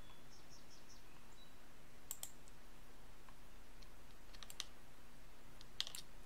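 Computer keyboard keys clicking: a couple of clicks about two seconds in, a few more around four and a half seconds and a quick cluster near the end, over a steady faint room hum.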